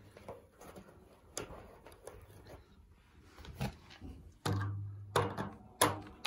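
Small clicks and knocks of a hand and a screwdriver working at an electric water heater thermostat's wire terminal screws, with a brief low hum about four and a half seconds in and a couple of sharper knocks near the end.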